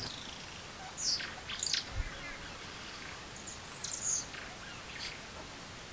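Birds calling in short, high, falling chirps: a few about a second in and another cluster a little after three and a half seconds, over faint outdoor background noise.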